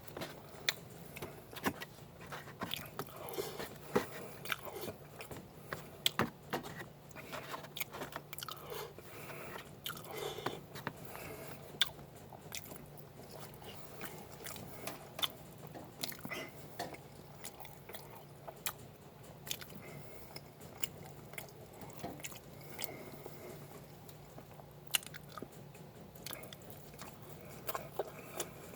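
A person eating fast and close to the microphone: biting and chewing French toast, bacon and egg, with frequent crunches and sharp clicks. A steady low hum runs underneath.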